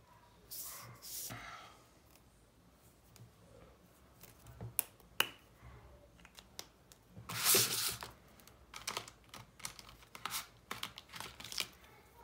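Scattered clicks and rustles from a fine-liner pen and a sheet of drawing paper being handled on a cutting mat, with the loudest rustle about seven and a half seconds in.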